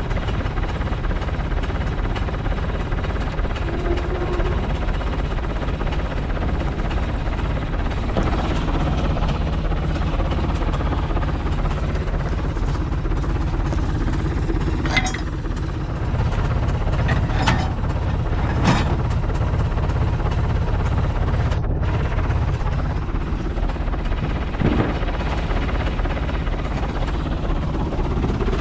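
Farm tractor engine running steadily with a low drone. A few sharp knocks sound about halfway through.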